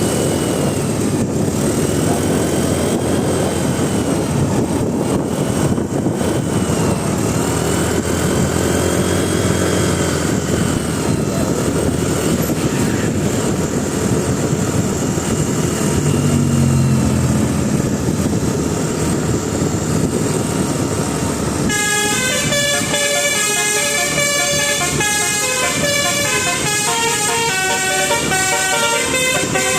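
Bus running with engine and road noise and faint repeating rise-and-fall horn tones; after a sudden cut about 22 seconds in, a telolet bus horn plays a fast tune of changing notes.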